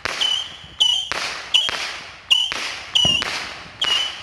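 Saturn missile battery firework firing its small whistling missiles in quick succession, about seven in four seconds at uneven intervals. Each shot is a sharp pop with a brief high whistle, trailing off in a fading hiss.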